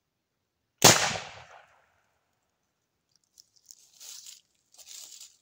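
A single shot from a 36-gauge double-barrelled muzzleloading shotgun (bate-bucha), fired from its right barrel with 2T shot, about a second in, dying away over most of a second. A few faint crunching rustles follow near the end.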